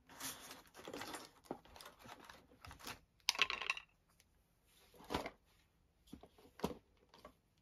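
Paper and cardstock rustling and sliding as paper craft pieces are handled on a table, with a few sharp taps in between.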